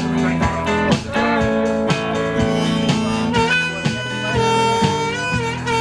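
Live blues on an amplified electric guitar and a rack-held harmonica. The harmonica holds long notes, bending some of them, over rhythmically strummed guitar chords.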